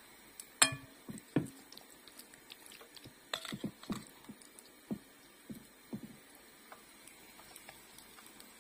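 Metal spoon clinking and scraping against a glass bowl while scooping thick zucchini batter. There is one sharp clink with a brief ring about half a second in, then scattered softer knocks and taps.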